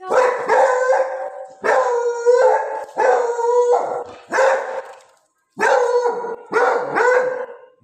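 Beagle baying: a series of about seven long howling barks, each holding a pitch and then dropping, with a short pause just after the middle.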